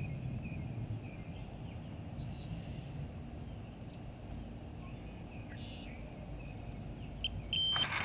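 Quiet lakeside ambience with a low wind rumble on the microphone and a few faint bird chirps. Near the end a sudden loud burst with a steady high-pitched tone breaks in, fitting the rod's electronic bite alarm going off as a fish takes the bait.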